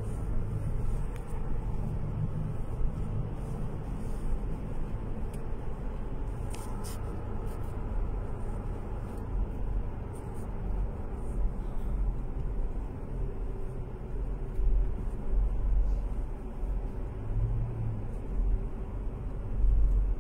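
Steady low rumble of engine and tyre noise inside a moving car's cabin. It swells a little at times, with a few faint clicks.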